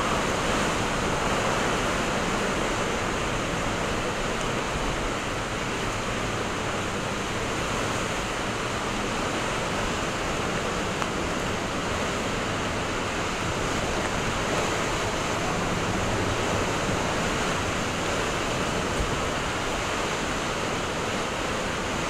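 Typhoon-force wind and torrential rain: a loud, steady rush of wind and driving rain that does not let up.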